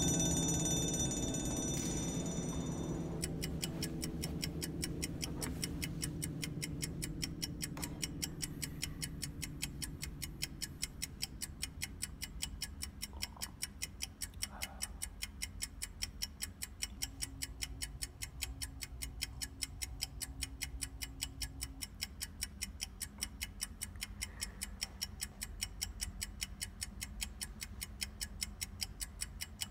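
A clock ticking steadily, about twice a second, over low sustained music. A high ringing cuts off about three seconds in.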